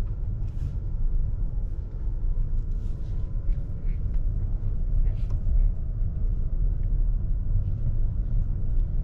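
Steady low rumble of a moving car's road and tyre noise, with a few faint light ticks.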